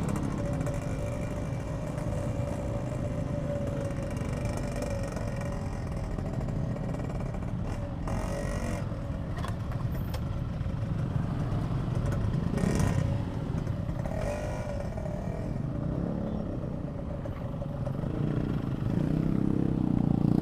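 Yamaha RX King's single-cylinder two-stroke engine running while riding in traffic, with a few brief clatters midway. The engine picks up and gets louder near the end.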